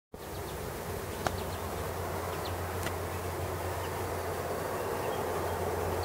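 Steady low hum under a light hiss, with a sharp click about a second in.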